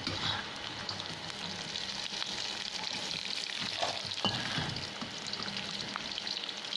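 Sliced young jengkol (dogfruit) frying in hot oil in a wok, the oil sizzling steadily, with a few scrapes and clicks of the spatula against the wok as the cooked pieces are lifted out.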